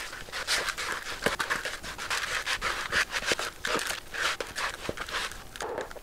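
Wooden spatula stirring a wet, sticky mix of seeds, grains and raisins in a plastic mixing bowl: a quick run of rasping, squelching scrapes, about two to three strokes a second, with occasional knocks of the spatula against the bowl. The stirring stops near the end.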